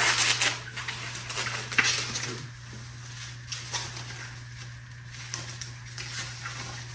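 Crinkling packaging and light metallic clinks as a set of metal RC rock sliders is unwrapped and handled, loudest in the first half second with a few sharp clicks about two seconds in. A steady low hum runs underneath.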